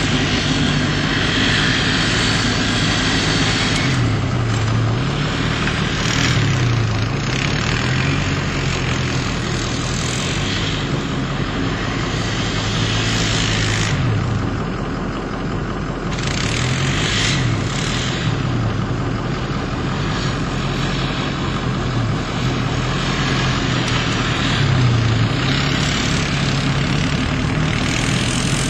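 Vehicle engine running and revving up and down again and again, its pitch falling and rising repeatedly, over a steady hiss.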